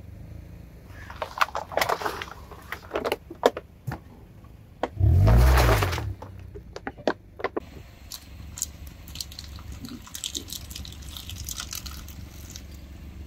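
Plastic crackling and popping as a car tyre rolls over and crushes pop-it toys, with a loud low rush about five seconds in.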